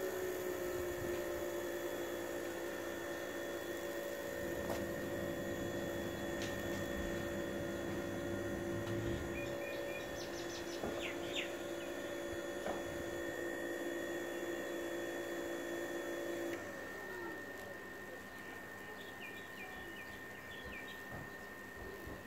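A steady two-tone hum that slides down in pitch and stops a little past two-thirds of the way through, with a few short bird chirps over it.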